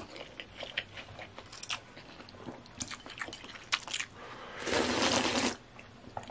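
A person eating instant noodles: many small wet clicks and smacks of chewing, then one long, loud slurp of noodles about four and a half seconds in.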